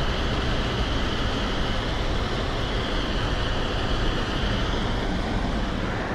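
Steady road noise of a moving car heard from inside the cabin: an even rumble and hiss of tyres and engine.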